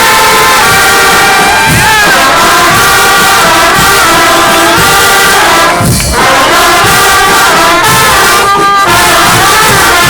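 Brass band playing loud music, trumpets and trombones holding chords that shift every second or so, with a brief dip in the sound about six seconds in.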